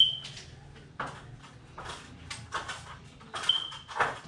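A string of knocks, scrapes and footfalls as a man climbs a stepladder and a tape measure is handled, with two brief high squeaks, one at the start and one about three and a half seconds in.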